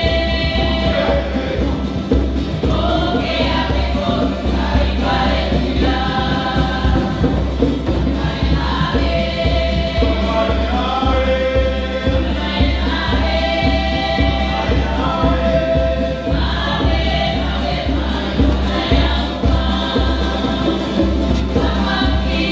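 Music: a choir singing over a steady bass beat.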